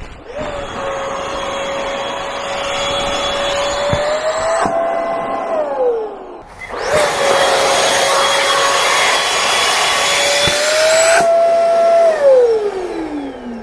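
Scott Patrol E1 avalanche backpack's Alpride E1 electric fan inflating the airbag on deployment: a loud, steady motor whine that climbs slightly in pitch, then winds down with a falling tone. It happens twice, the second run starting about seven seconds in.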